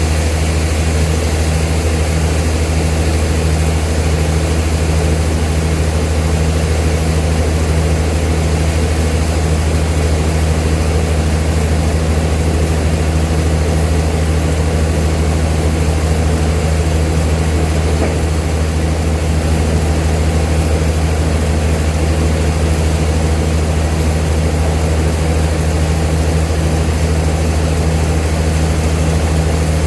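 Old sawmill machinery running steadily: a constant low hum over even mechanical noise, with no change in load.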